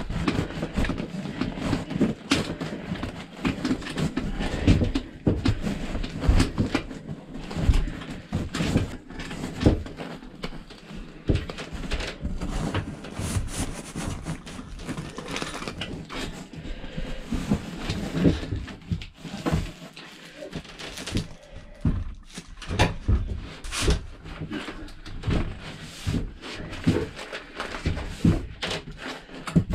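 Rustling and crinkling of kraft-paper-backed fiberglass insulation being worked by hand up through a ceiling opening, with irregular knocks and bumps throughout.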